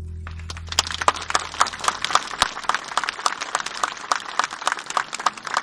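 Audience clapping, starting about a quarter second in, as the last sustained chord of a guitar-accompanied song dies away over the first two seconds.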